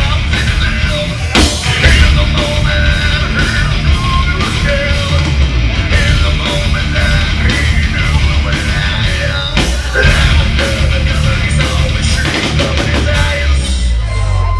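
Hard rock band playing live at full volume: guitars, bass and drums with frequent cymbal hits.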